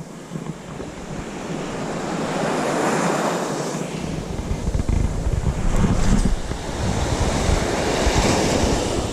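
Surf breaking and washing up a beach, swelling and ebbing, with wind buffeting the microphone as a low rumble from about four seconds in.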